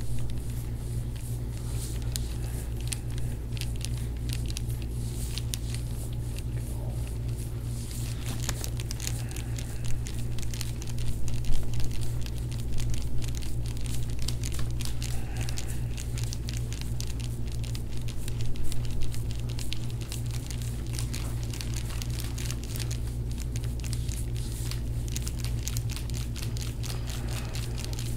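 Dense, irregular crinkling and crackling rustle from hands-on shoulder-blade work on a patient lying on a treatment table. It is loudest about ten to thirteen seconds in and again briefly near nineteen seconds, over a steady low hum.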